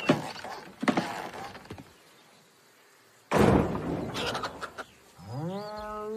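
Cartoon sound effects: three thumps or knocks like a door being shut, then after a short pause a loud rustling burst. A pitched cartoon call rises and then holds near the end.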